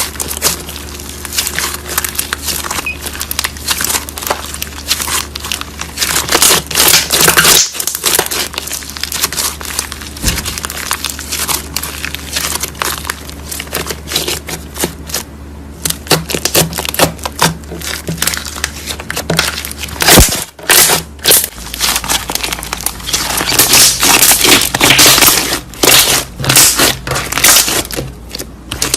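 Slime being squished and kneaded by hand, a dense run of wet crackling and clicking, heavier in stretches.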